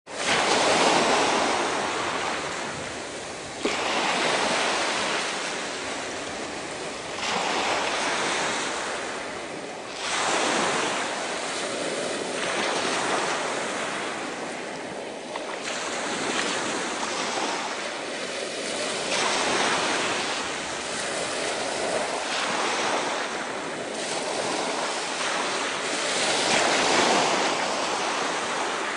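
Small waves breaking one after another on a shingle beach, the surf rushing up and washing back over the pebbles in surges about every three seconds. There is a single sharp knock a few seconds in.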